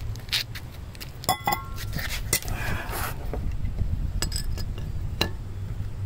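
Metal tools being handled, clinking and clattering: a few sharp knocks, one with a short metallic ring about a second and a half in, and a brief scraping rustle in the middle, over a steady low rumble.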